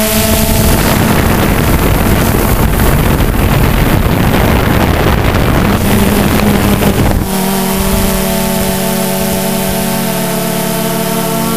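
DJI Phantom 2 quadcopter's motors and propellers humming steadily, heard from the camera mounted on the drone. From about a second in, wind on the microphone covers the hum with a rough rushing noise; about seven seconds in the wind drops and the steady hum comes through clearly again.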